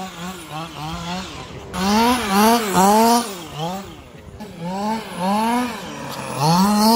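Two-stroke petrol engine of a 1/5-scale Losi 5ive-T 2.0 RC truck driving during its break-in run, its revs rising and falling again and again with throttle blips, easing off briefly around the middle before revving up again near the end.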